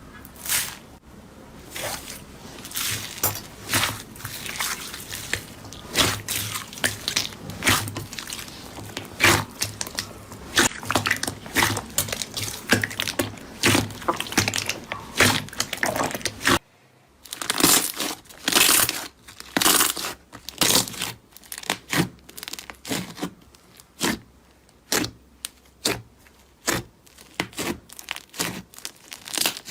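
Slime being squeezed and pressed by hand: a steady run of irregular wet clicks and pops. They break off briefly a little past halfway, then carry on.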